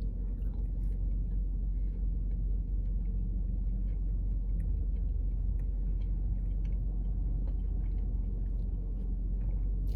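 Steady low rumble of a car idling, heard from inside the cabin, with a few faint small clicks.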